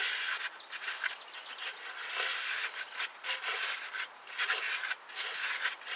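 A rag wiping and scrubbing the inside of an empty metal axle housing: cloth rubbing on metal in quick, irregular strokes as brake cleaner is mopped out of the casing.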